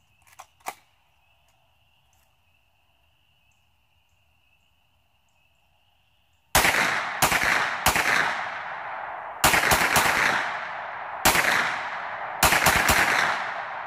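A 9mm carbine fired semi-automatically: about ten sharp shots starting about halfway in, some fired singly and some in quick runs of three, each trailing off in a long echo.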